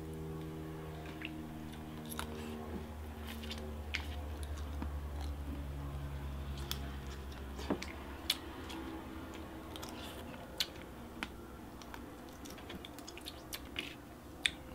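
An airplane overhead: a low, steady drone with several hum tones that fades away about halfway through. Over it come scattered sharp clicks and crackles of crawfish shells being peeled by hand, and chewing.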